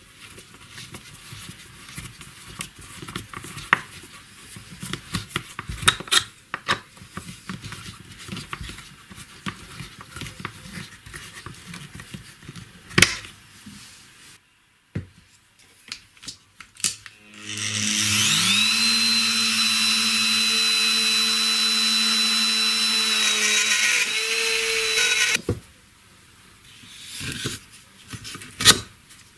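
Small screws being driven by hand into a plastic drainage pipe, with scattered clicks and knocks. About eighteen seconds in, an electric motor spins up with a rising whine, runs steadily for about seven seconds, and then stops.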